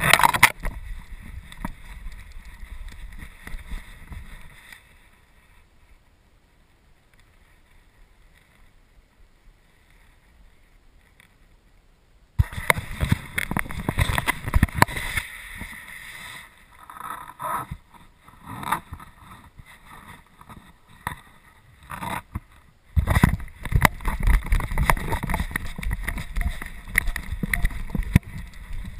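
Irregular bumping and rustling from a camera strapped to a golden retriever moving through snow. The noise drops to a quiet spell for several seconds soon after the start, then comes back in bouts and is loud again near the end.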